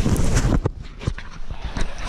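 Irregular knocks and low thumps close to the microphone, mixed with water slapping, as a camera is handled aboard a sea kayak in a narrow rock tunnel.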